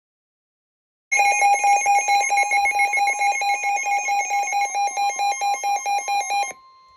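A weather alert radio's alarm going off for a severe thunderstorm warning: a loud electronic beep, warbling rapidly at about six pulses a second, starting about a second in and lasting some five seconds. It cuts off suddenly, leaving the broadcast's steady warning tone faint behind it.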